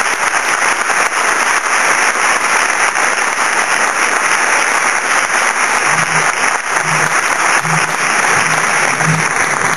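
Audience applauding: dense, steady clapping that ends near the close.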